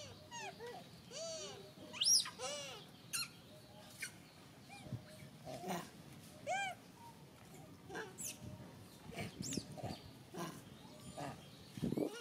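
Long-tailed macaques calling: a string of short, arched, squeaky coos, with a sharp high squeal about two seconds in and another around eight seconds, over scattered small clicks.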